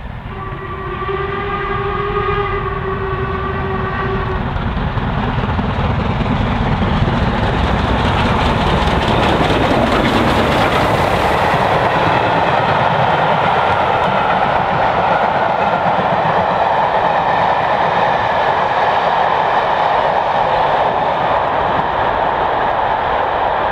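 A locomotive whistle sounds one long note for about four seconds. Then a double-headed steam train of LMS Stanier Class 5 4-6-0s and coaches passes close by, its rumble and the clatter of wheels over the rail joints growing loud and staying loud.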